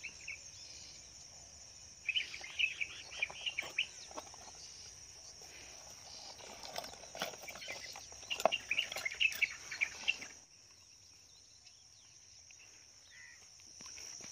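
A steady high-pitched drone of insects such as crickets runs throughout. Over it come two spells of light clicking and clinking, about two seconds in and again from about seven to ten seconds; the later spell is metal spoon lures rattling in a plastic tackle box.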